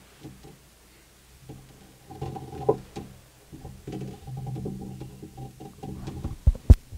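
Handheld microphone picking up handling noise while it is carried: rustling and light knocks over faint steady tones, then two loud low thumps about six and a half seconds in.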